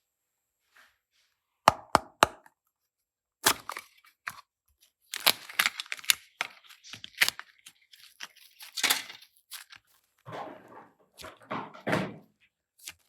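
Hands working slime-making materials and containers: three sharp clicks, then a run of clicks and crackles, then softer, lower rustling handling noise near the end.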